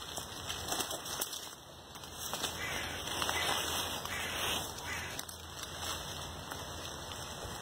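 Bird calls over a steady hiss, a little louder in the middle.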